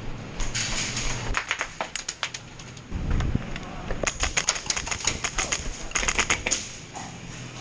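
Airsoft guns firing, rapid snapping shots in two volleys, the second from about four seconds in.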